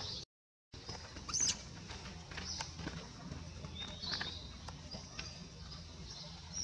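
Outdoor ambience of short, high-pitched animal chirps and squeaks, with a few light clicks and rustles over a steady low hum. The sound drops out completely for about half a second near the start.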